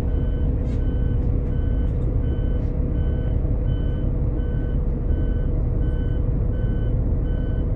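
Inside the cabin of a 2011 Daewoo FX116 coach on the move: the Doosan DL08S inline-six turbodiesel and road noise give a steady rumble with a constant hum. Over it an electronic beeper sounds a short two-pitch beep about once every 0.7 seconds.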